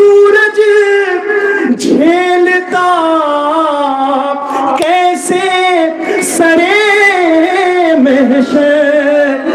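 A man singing an Urdu devotional poem (kalam) solo, drawing out long high notes with a wavering, ornamented pitch.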